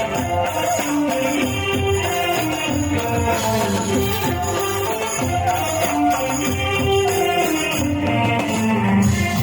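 Instrumental music from a band during a sound check: tambourine jingles and hand percussion keep a steady rhythm under a pitched melody and bass line.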